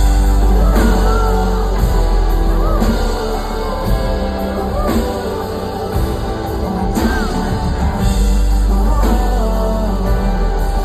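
Loud live pop music with a heavy bass and steady beat between the song's sung lines, with wordless vocal runs over it.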